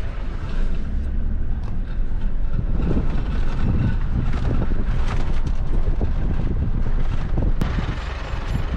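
Vehicle driving slowly over a rough dirt track, heard from inside the cabin: a steady low engine and tyre rumble with frequent small knocks and rattles from the bumps.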